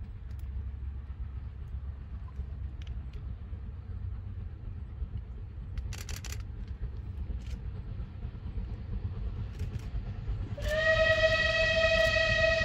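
Bulleid Battle of Britain class steam locomotive 34053 approaching at a distance with a low rumble. About ten and a half seconds in it sounds its steam whistle, one long steady note.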